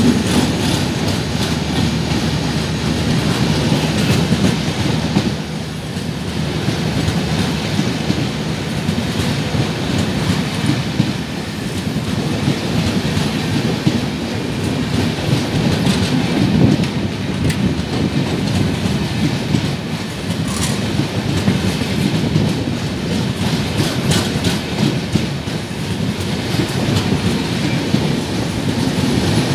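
Humsafar Express passenger coaches rushing past at speed through a station, a continuous rumble with wheels clattering over the rail joints.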